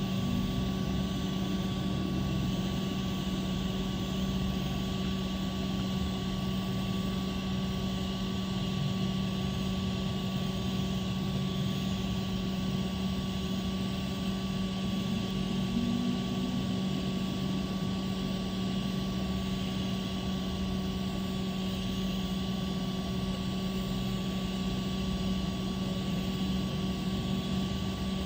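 Steady mechanical drone: a constant hum with an even rushing noise over it, unchanging throughout.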